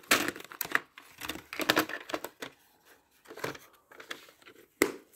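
VHS tape and its plastic clamshell case being handled and closed: a quick run of plastic clicks and rattles over the first couple of seconds, then a few separate clicks.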